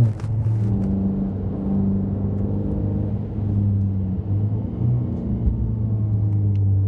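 Ford Mustang EcoBoost's 2.3-litre turbocharged four-cylinder running through an un-catted MRT off-road turbo-back exhaust, heard from inside the cabin while driving: a loud, steady low exhaust drone with little change in pitch.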